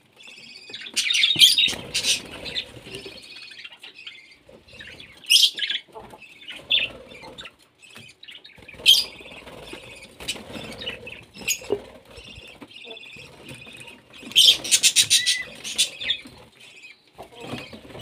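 Small Australian parrots chirping in short, scattered bursts, with a fast run of rapid repeated chirps about three-quarters of the way through.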